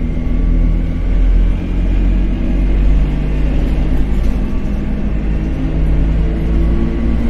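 Dennis Dart single-deck bus's diesel engine running: a steady low rumble with a thin high whine over it.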